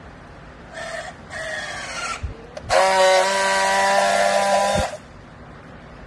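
Battery-powered handheld strapping tool working on a plastic strap around a bale: two short motor whines as it pulls the strap tight, then a louder, steady whine for about two seconds as it friction-welds the seal, cutting off sharply.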